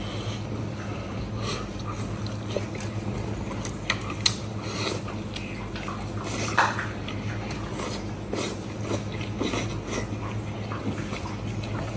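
Close-miked eating: a man biting and tearing meat off a glazed pork rib bone and chewing, with scattered wet smacks and sharp clicks over a steady low hum.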